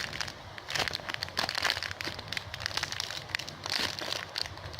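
Plastic bag crinkling and crackling in irregular bursts as squishy toys are handled.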